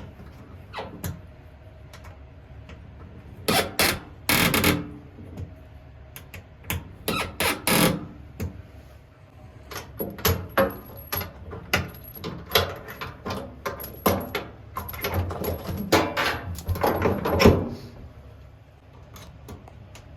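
Irregular clicks, knocks and rattles of hand tools and metal fittings being handled during kitchen faucet replacement work, with several louder noisy bursts.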